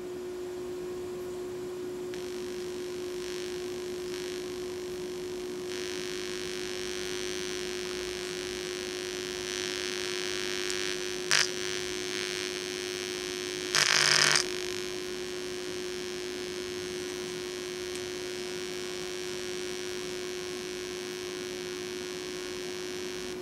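Homemade LA4440 amplifier idling with no input, its loudspeaker giving a steady hum and hiss. About eleven seconds in there is a sharp click, and a few seconds later a brief crackle, as the 3.5 mm audio plug is handled and plugged in.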